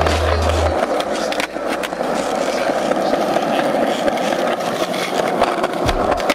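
Skateboard wheels rolling over stone paving tiles, a steady rolling rumble with occasional clicks over the tile joints. Near the end, a sharp snap as the tail is popped against the ground for a flip trick.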